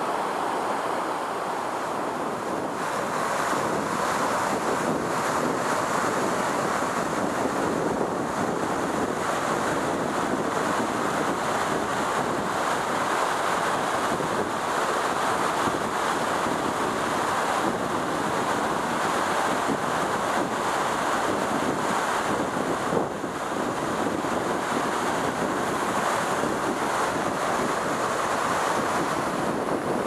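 Waterfall rushing steadily, water pouring down a rock face into a plunge pool.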